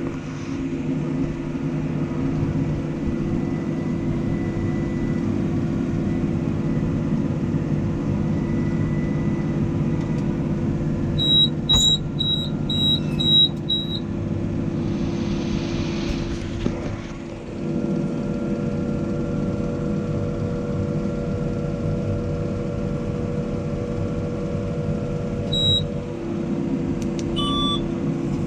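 New Holland T7 tractor's diesel engine running steadily while working with a round baler. Near the middle comes a run of six short, high electronic beeps about half a second apart, and two more single beeps near the end. The engine note shifts slightly a little after halfway.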